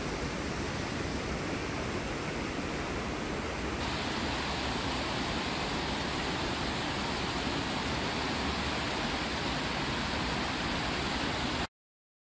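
Fast mountain river rushing over rocks in white-water rapids: a steady hiss that grows a little louder and brighter about four seconds in, then cuts off abruptly near the end.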